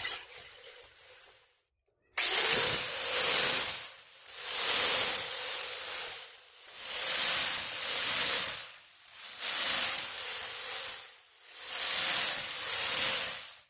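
Power sander's spinning sanding disc running with a steady high whine as small mahogany pieces are pressed against it. The grinding rasp swells and fades in repeated passes, about every two and a half seconds. The sound cuts out briefly about two seconds in, then starts again.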